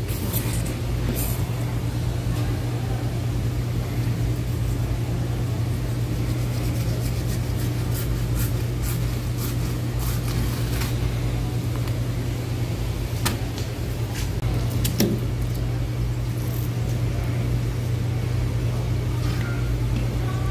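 A steady low mechanical hum throughout, with scattered short clicks and faint scrapes of knife work while a fish is being skinned.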